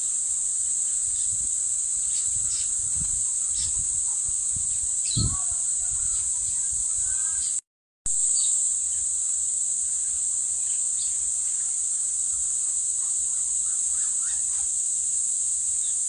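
Steady, high-pitched drone of insects in farmland, with a few short bird chirps and calls over it. The sound cuts out briefly about halfway.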